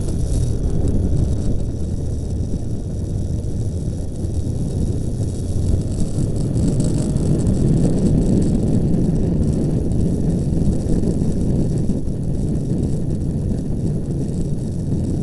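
Steady low rumble of a car driving slowly in traffic, heard from inside the car's cabin: engine and tyre noise with no clear events.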